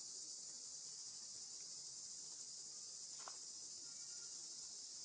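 Steady, high-pitched chorus of forest insects droning without a break, with one brief click a little over three seconds in.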